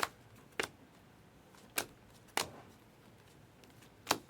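Trading cards being flipped through one at a time: five short, sharp snaps at uneven intervals as each card is moved.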